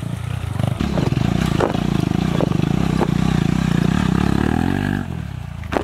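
Dirt bike engine running at low, fairly steady revs as the bike is ridden along a trail, dipping slightly near the end.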